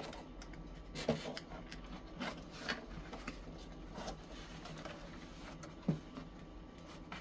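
Cardboard box flaps being folded and tucked in by hand: light rubbing and scraping of cardboard on cardboard, broken by scattered small taps and creases, the sharpest one near the end.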